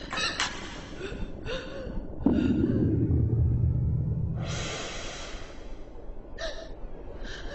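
A person breathing hard in short, ragged gasps. About two seconds in, a sudden loud low rumble sets in for about two seconds, followed by a long breathy hiss.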